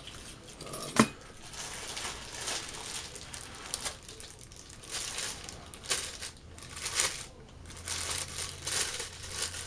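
Crinkling and rustling of packaging being handled, with scattered clicks and a sharp click about a second in.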